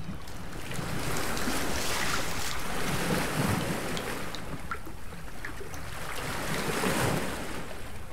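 Wind buffeting the microphone over small waves lapping at a harbour pier, with a few faint clicks.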